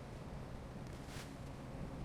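Low, steady rumble of heavy diesel construction machinery running, with a brief hiss just past the middle.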